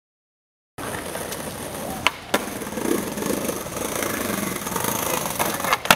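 After a moment of silence, a skateboard rolls and scrapes along a tiled ledge. There are sharp clacks of the board hitting down about two seconds in, twice in quick succession, and again near the end.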